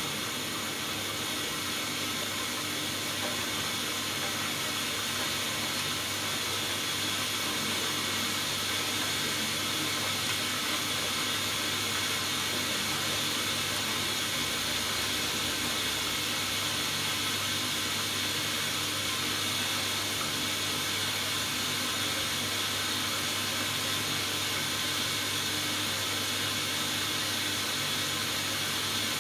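Hoover Dynamic Next washing machine filling with water for the final rinse: a steady hiss of water running in through the inlet, with a low hum under it.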